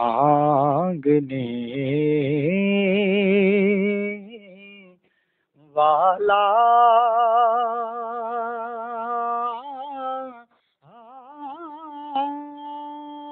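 A naat sung by one unaccompanied voice, with ornamented runs and long held notes that waver with vibrato. The phrases break off in short pauses about five seconds in and again about ten and a half seconds in.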